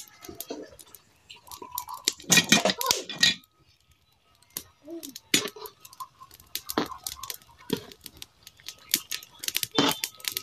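Metal spatula scraping and clinking against a wok while stirring tapa, in irregular strokes. There is a dense run of scraping about two to three seconds in, a second's pause, then more scattered knocks and scrapes.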